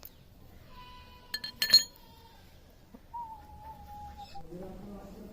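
A hammer striking a chisel to cut the surplus end off a steel hanger wire: two sharp, ringing metallic clinks about a second and a half in.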